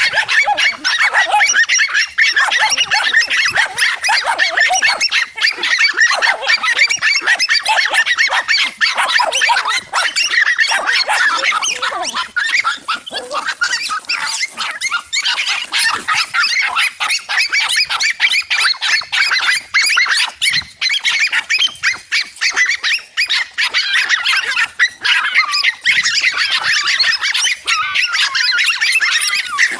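Several dogs barking and yelping at once in a dense, high-pitched, overlapping racket as they attack a large tegu lizard.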